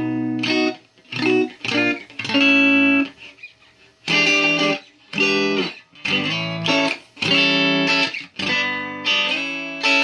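Telecaster-style electric guitar, built from a DIY kit, played through an amplifier. Chords come in short phrases, each a half second to a second long, separated by brief silences.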